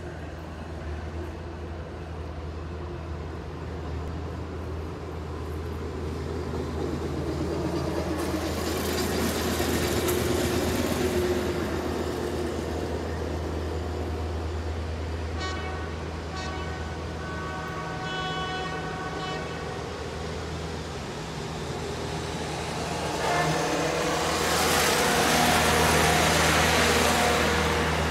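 Railroad maintenance-of-way equipment approaching and passing on the track, over a steady low hum. About halfway through, a high-pitched horn gives a few short blasts, and the equipment rumbles past loudly near the end.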